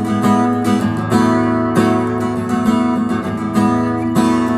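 Acoustic guitar strummed in a steady rhythm, an instrumental passage between sung lines of a folk song.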